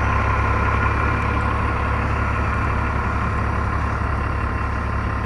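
Mower engine running steadily.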